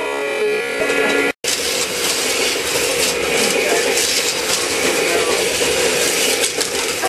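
HO-scale AFX slot cars running on plastic slot track, their small electric motors whirring steadily with a rattly edge. The sound cuts out for a moment about a second and a half in.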